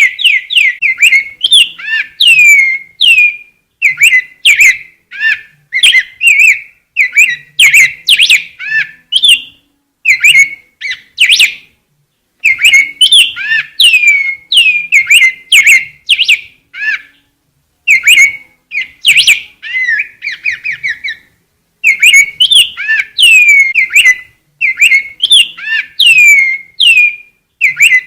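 Rey del bosque grosbeak singing: a fast, loud run of clear whistled notes, many of them sliding down in pitch, given in phrases with a few short breaks.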